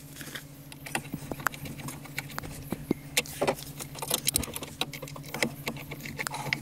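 Screwdriver driving the mounting screws into a car stereo's metal side bracket: irregular small metallic clicks and scrapes over a steady low hum.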